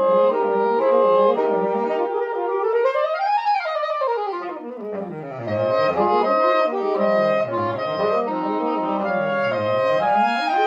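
Saxophone quartet of soprano, alto, tenor and baritone saxophones playing: held chords, then a fast run that sweeps up and back down about three seconds in, followed by repeated rapid up-and-down runs reaching into the baritone's low register.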